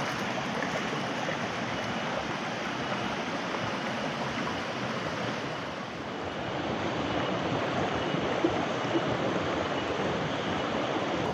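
Shallow rocky stream running over stones: a steady wash of flowing water.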